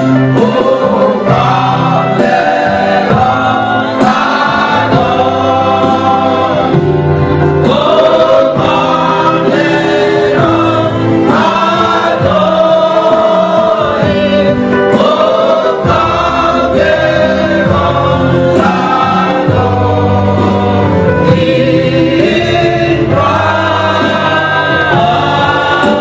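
A gospel choir singing an anthem, with music behind the voices.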